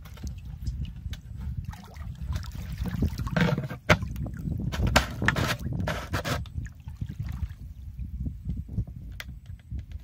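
Shallow water sloshing and trickling around a plastic jug fish trap as it is handled and set, with a few sharp knocks in the middle over a steady low rumble.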